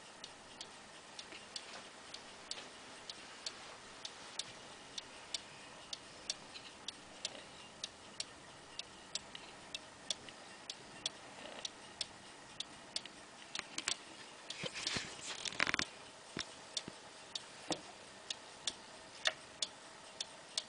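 1950s Junghans pendulum wall clock ticking steadily, about two ticks a second. About three-quarters through comes a short burst of scraping and clicks, louder than the ticking, as the minute hand is pushed round by hand.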